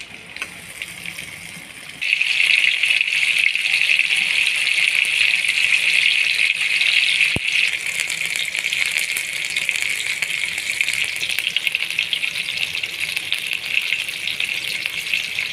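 Tandoori chicken pieces sizzling in hot oil in a steel pan: a dense crackling hiss that jumps up suddenly about two seconds in and then stays loud and steady.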